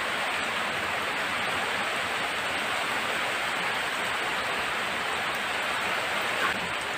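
Heavy rain falling steadily, an even, continuous hiss of the downpour.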